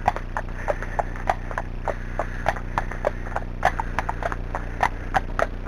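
Horse hooves clip-clopping at a walk on a tarmac lane, a steady beat of about three strikes a second.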